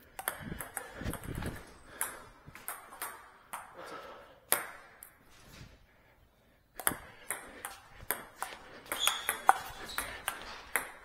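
Table tennis ball clicking off bats and the table in quick rallies, with a short lull about halfway through.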